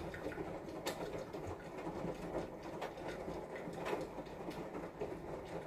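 A steady mechanical rumble runs underneath. A few light clicks and soft scrapes come from a metal spatula spreading frosting on a cake.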